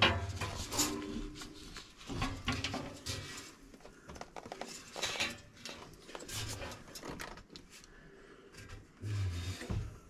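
Heat exchanger of a York furnace, sheet-metal panel and steel tubes, clanking and scraping against the cabinet as it is worked out by hand: irregular metal knocks and scrapes, with a dull thump just before the end.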